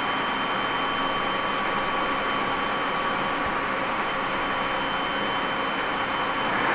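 Tobu 30000 series electric train heard from inside a motor car while running: a steady rumble of wheels on rail with a steady high whine over it.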